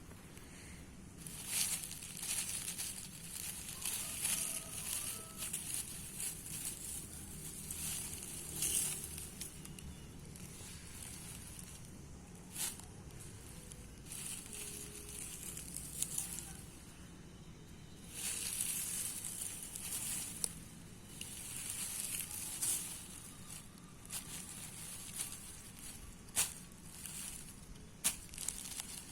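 Rustling and crackling that comes and goes in bursts of a few seconds, with a few sharp clicks.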